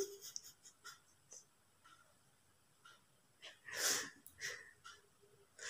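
Breathy sniffs and sharp breaths through the nose as a woman tickles inside her nostril with a thin stick to bring on a sneeze. The loudest comes about four seconds in, a shorter one follows, and another starts near the end.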